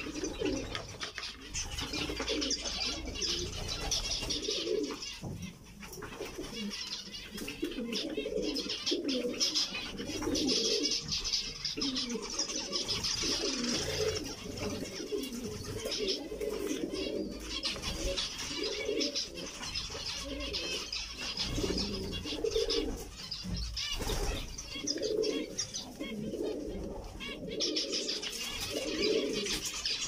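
A flock of zebra finches calling and chattering continuously, with a lower-pitched repeated call from a bird not in view running underneath.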